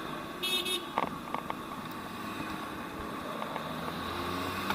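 Steady city street traffic noise heard while riding a bicycle. There is a brief high-pitched squeak about half a second in, a few light clicks around a second in, and a low engine hum that builds near the end.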